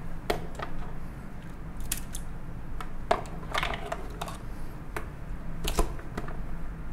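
Cooked lobster claw and knuckle shells being cracked and snapped apart by hand: scattered sharp cracks at an irregular pace, the loudest about six seconds in.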